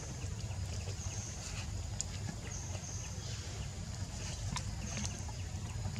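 Outdoor jungle ambience: a high-pitched insect trill that comes and goes in short spells over a steady low rumble, with a few faint clicks.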